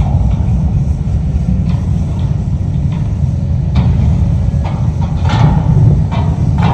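Hitachi ZX1000K high-reach demolition excavator's diesel engine running with a deep, steady noise, while a few sharp metal clanks and crunches come in the second half as the shear works on steel structure.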